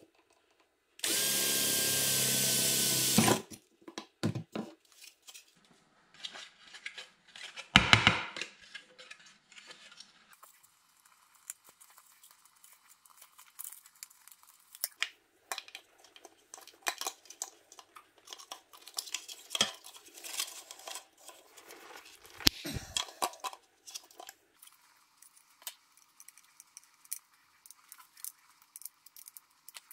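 Cordless power drill running for about two seconds with a steady whine, driving at the screws of a plastic car-mirror housing. After it come light clicks, a knock and rustling as the mirror's plastic cover and power cable are handled.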